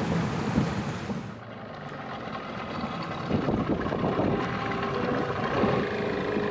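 A vehicle running, with a steady engine hum and road or wind noise. The sound changes abruptly about one and a half seconds in.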